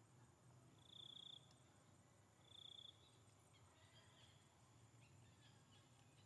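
Two short, high-pitched insect trills, the first about a second in and the second about a second and a half later, over a faint low hum, with faint scattered chirps after them.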